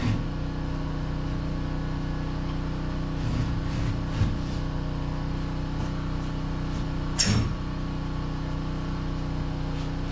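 A steady mechanical hum runs throughout. Over it come a few dull thumps a little past three and four seconds, and one sharper knock about seven seconds in, as a wall panel is pushed and knocked into place.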